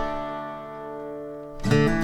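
Background music on acoustic guitar: a held chord rings and fades, then new plucked notes come in near the end.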